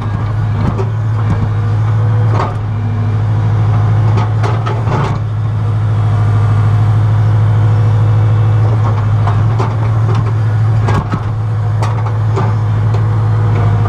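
Excavator's diesel engine running steadily, heard from inside the operator's cab, with scattered knocks and clanks as the bucket digs into the dirt.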